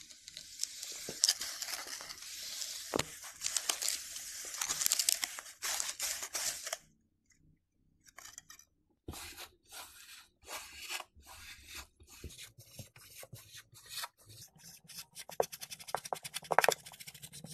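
Pink kinetic sand crunching and crumbling as a wire whisk is pushed down through a molded cone of it, a dense, fine crackle for the first seven seconds. After a brief pause come separate crunchy presses as the sand is pressed and stamped with a metal meat tenderizer, the strokes coming faster near the end.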